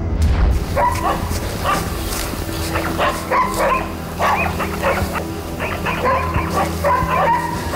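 Hunting dogs barking in a rapid, irregular string while baying a wild boar they have cornered.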